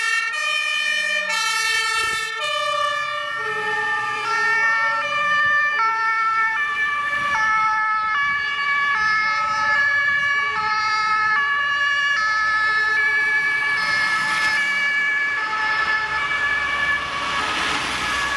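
Several German fire-engine two-tone sirens (Martinshorn) sounding at once, each switching between its two notes but out of step with the others. Near the end, engine and road noise swells as a vehicle comes close.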